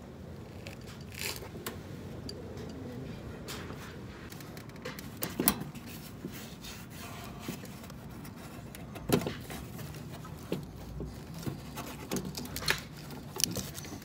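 Handling noise close to the microphone: a work jacket brushing and rubbing against it, with scattered sharp knocks and clicks, the loudest about five and nine seconds in.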